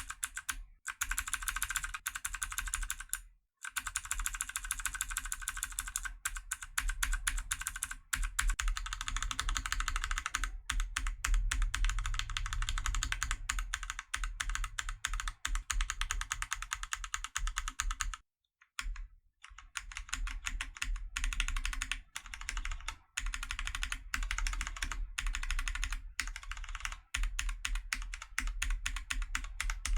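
Mechanical keyboard switches being typed on rapidly, a dense run of key clicks and clacks, with brief pauses about three seconds in and about eighteen seconds in.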